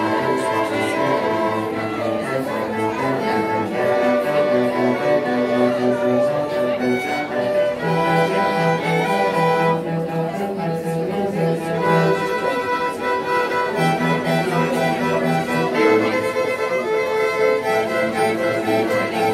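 A string sextet of five violins and a cello playing a piece together, with held, bowed notes and the cello carrying the low line beneath the violins.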